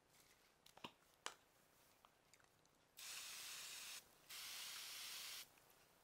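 Spray starch hissing out onto crocheted cotton coasters in two steady bursts of about a second each, the second a little longer. Two light clicks come about a second in.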